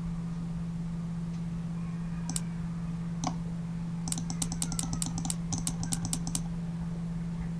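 Typing on a computer keyboard: two single keystrokes, then a quick run of about a dozen key presses, over a steady low hum.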